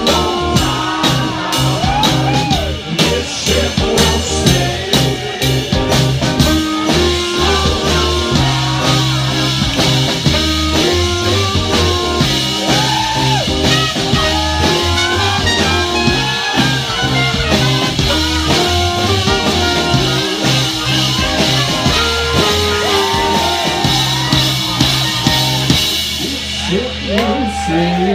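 Live rock band playing loud, drum kit keeping a steady beat under low bass notes, electric guitar and singing. The drumming and music stop about two seconds before the end.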